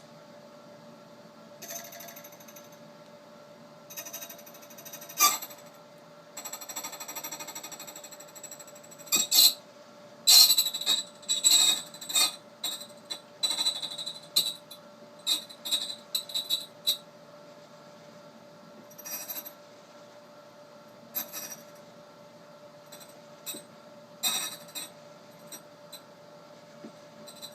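Dominion Lock KMU key duplicating machine, converted to semi-automatic, running with a steady motor hum while its cutter cuts a Y1 key blank in irregular scratchy bursts, loudest from about nine to seventeen seconds in.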